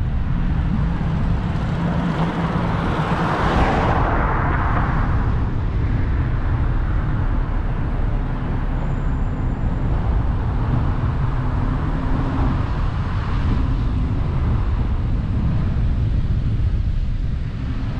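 Low rumble of wind buffeting the microphone of a moving camera, mixed with road noise from travelling along a street, with a hissing swell that peaks about four seconds in.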